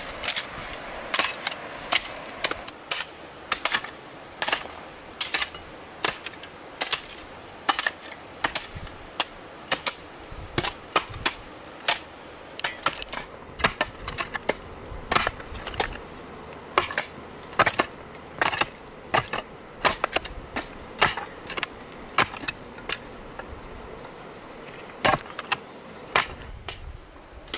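Repeated sharp chopping strikes of a hand tool, about one to two a second with brief pauses, as a banana plant is dug out at its base.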